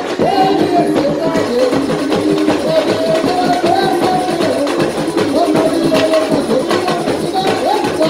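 Live samba from a samba-school group: a singing voice over a small guitar and a drum section of surdos and hand percussion, at a steady lively beat.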